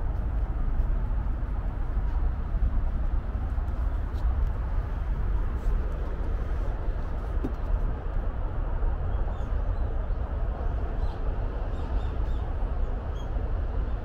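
Outdoor ambience of a steady low rumble, with a few faint, short high bird chirps in the second half.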